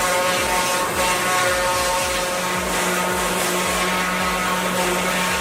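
Heavy machine's engine running steadily under load, a continuous hum with a low repeating throb.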